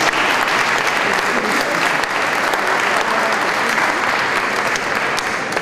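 Audience applauding: a steady round of many hands clapping, easing off near the end.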